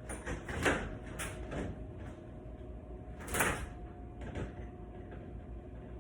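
Several short knocks and scraping clatters of objects being handled, the two loudest about two-thirds of a second and three and a half seconds in, over a faint steady hum.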